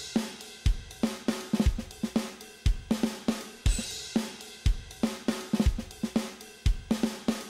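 Intro theme music: a drum-kit beat with a kick drum about once a second, snare and hi-hat hits between, and a cymbal crash at the start and again about four seconds in.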